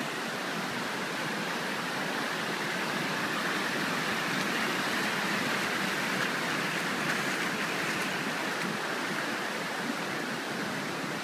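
Running water: floodwater runoff flowing steadily across the paved road and over rocks and debris, a little louder in the middle.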